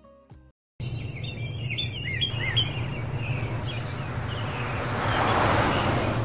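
Birds chirping and tweeting over a steady low hum of outdoor ambience, starting abruptly after the last guitar notes die away. A rush of noise swells and fades near the end.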